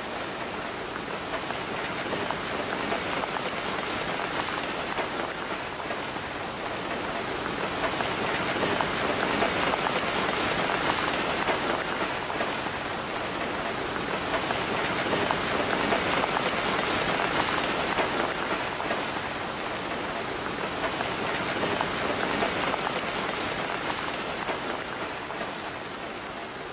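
Steady rain falling on a surface, a dense even patter that swells and eases gently every few seconds.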